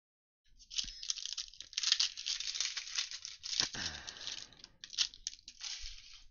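Foil wrapper of a trading card pack being torn open and crinkled, with a single soft knock about halfway through.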